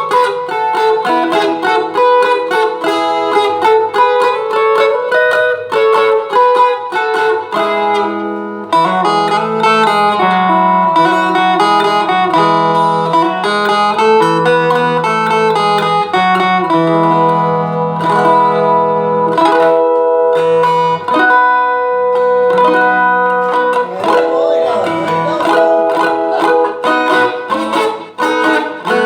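Viola caipira tuned in cebolão E major, played through a small amplifier: an instrumental solo of quick plucked melody notes over sustained low notes, with a brief pause a little past eight seconds in.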